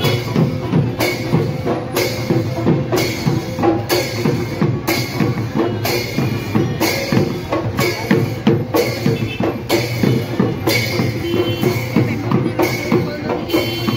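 Dhol drumming in a steady, driving rhythm, with other instruments holding tones underneath. The music cuts off suddenly at the end.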